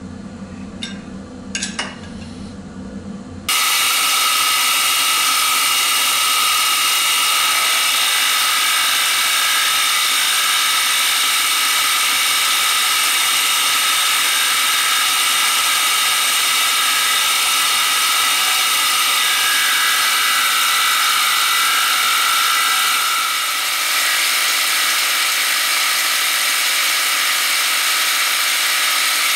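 A few clicks as a steel plate is clamped down, then, about three and a half seconds in, a Deckel milling machine starts cutting across the steel plate to clean up its surface: a steady machining noise with a high whine, changing slightly about twenty seconds later.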